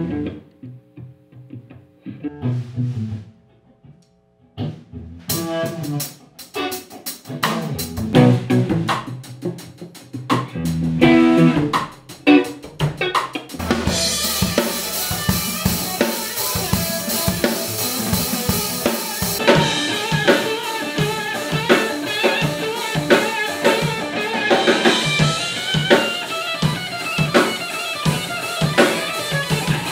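Live band music: sparse guitar notes at first, then a drum kit comes in with snare, bass drum and rimshot hits about five seconds in. Around the middle it builds into a full groove with crashing cymbals.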